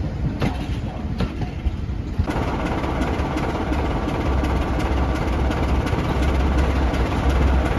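Passenger coaches rolling past with a few wheel clicks over the rail joints, then heritage diesel locomotive engines running with a low pulsing note that grows louder toward the end.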